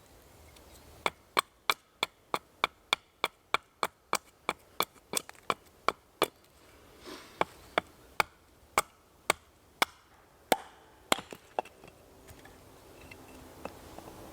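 Wood being chopped by hand: a quick run of sharp strikes, about three a second, then slower, more widely spaced blows that stop near the end.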